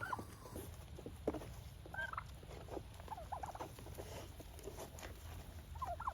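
Farm birds calling: scattered short, high chirping calls that glide up and down, over a steady low rumble.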